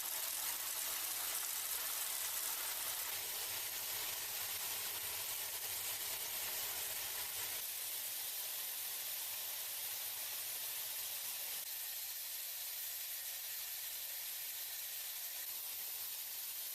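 Steady, high-pitched hissing noise of battery-factory machinery, easing slightly about eight seconds in.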